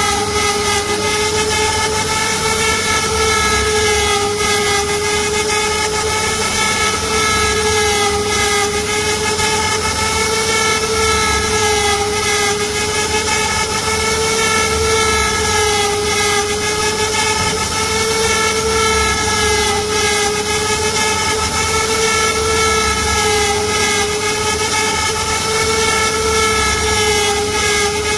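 CNC router spindle motor whining steadily as a small bit carves a relief pattern into a wooden panel, its pitch wavering slightly every few seconds.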